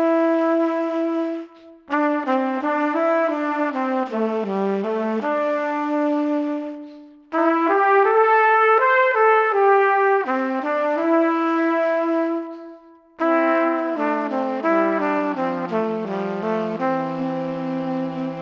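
Brass instrumental music: a trumpet-led melody in phrases separated by short pauses, with lower brass joining toward the end.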